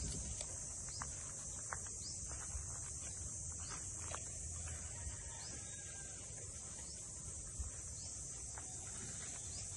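Steady high-pitched drone of insects, with a few faint clicks and short rising chirps over it.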